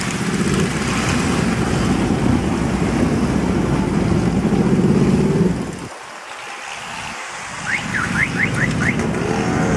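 Many motorcycle engines running together in a slow-moving column, a dense low rumble that drops away for about two seconds past the middle. Near the end come five quick rising chirps.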